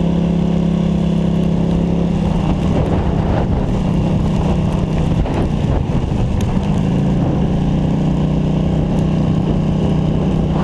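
Polaris Scrambler ATV engine running at a steady, constant pitch while riding through deep snow. In the middle, for about four seconds, the steady tone turns rougher and noisier, then settles back to the same steady pitch.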